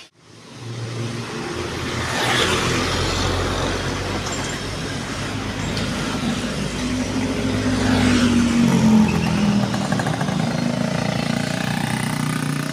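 Road traffic: the engines and tyres of cars, a minivan and motorbikes passing close by. Around the middle one vehicle's engine note falls slowly in pitch as it goes past.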